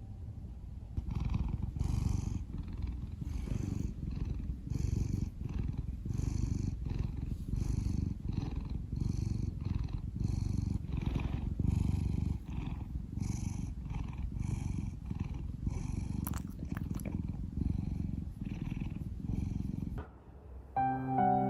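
Domestic cat purring close to the microphone, a steady low rumble with a regular pulse. Soft piano music comes in near the end.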